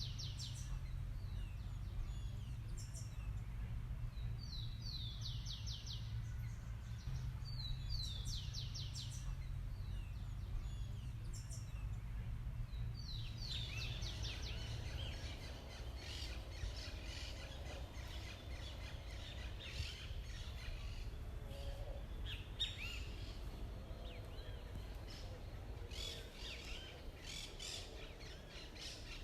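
Wild birds calling outdoors: at first a few short runs of quick high chirps, then from about halfway a busier chorus of many birds singing at once, over a steady low rumble.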